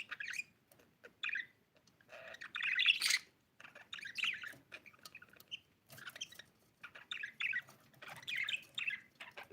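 Pet budgerigar chirping and warbling in short, irregular bursts, with small clicks between them; the loudest burst comes about three seconds in.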